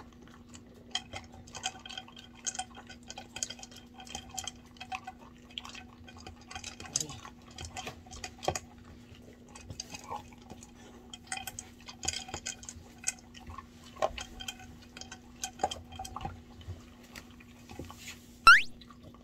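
Beagle eating from a plastic food bowl: irregular clicks and clatters of food against the bowl as it chews. About a second before the end comes a short, loud rising swoop of a sound.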